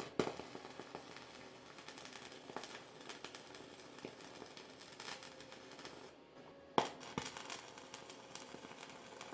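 Stick (SMAW) welding arc crackling faintly as a bead is laid. The arc sound drops out briefly a little past halfway and comes back with a sharp crack.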